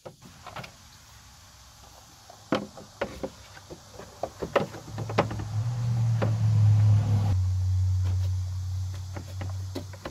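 Hard plastic air-box parts knocking and clattering as the lower filter housing is pulled up and handled, with a steady low hum coming in about halfway and lasting to the end.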